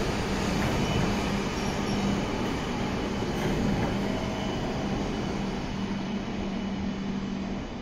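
Shinkansen train moving along the station platform, with steady running noise and a low hum that ease off slightly near the end.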